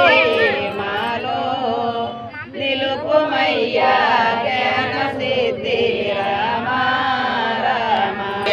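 Voices chanting a Hindu devotional hymn in a continuous melodic line, accompanying the offering of dhoop (incense) to the deity.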